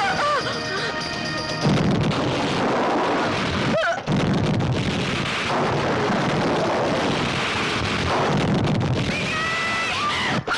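Movie soundtrack: a woman's scream over dramatic music, then from about two seconds in a long run of explosions, broken briefly near four seconds, with cries rising again near the end.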